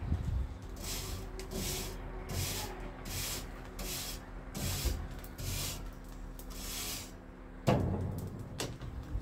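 A long-handled tool scraping back and forth across a metal barbecue grill grate, about eight even strokes, then a single sharp knock near the end.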